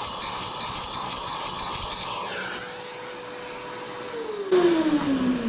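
Shop vac sucking loose coffee beans out of an espresso grinder's burr chamber, with a steady motor hum. About four seconds in it is switched off and the motor winds down, its pitch falling.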